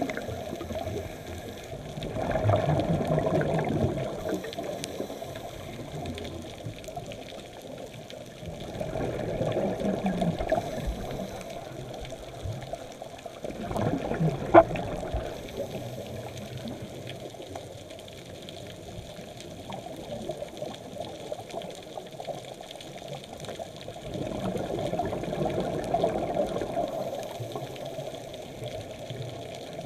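Scuba diver breathing through a regulator underwater: exhaled bubbles rush past in four bursts several seconds apart, with a quieter hiss of water between. There is one sharp click about halfway through.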